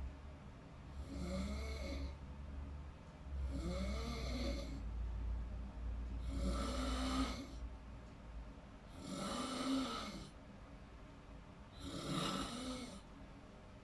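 A person snoring in deep sleep, five snores about two and a half seconds apart. Each snore lasts about a second, with a pitch that rises and falls within it.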